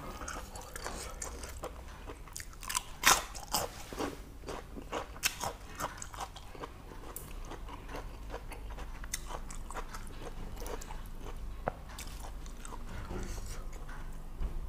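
Close-up mouth sounds of someone chewing boiled pork intestines: a string of wet clicks and smacks, thickest over the first several seconds, then sparser.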